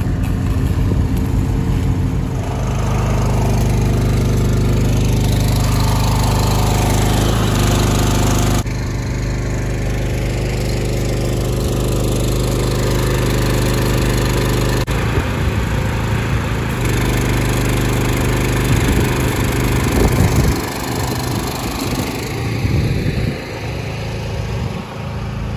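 A small engine running steadily at a constant speed, its tone changing abruptly several times. Its sound turns rougher and less even in the last few seconds, with a few knocks.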